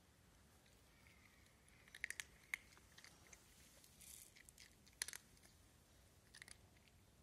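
A cat crunching dry kibble: faint, sharp crunches in small clusters, loudest about two seconds in and again about five seconds in.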